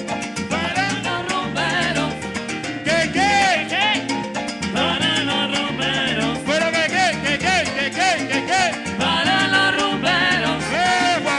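Live band playing salsa-style Latin dance music through a loud PA: bass notes and percussion keep a steady beat under a gliding melody line.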